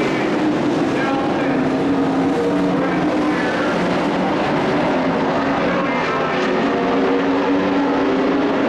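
Race truck engine running on a dirt oval: a steady drone whose pitch rises and falls a little.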